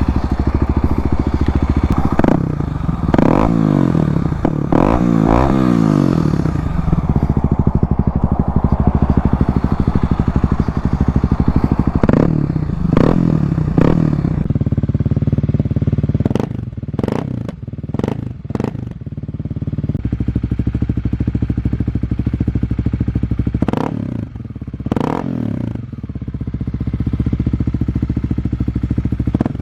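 Kawasaki KLX250's single-cylinder engine through an FMF Q4 exhaust, running with repeated throttle blips: revs rise and fall a few times in the first six seconds and again around twelve seconds in, then come as quick, short blips in the second half.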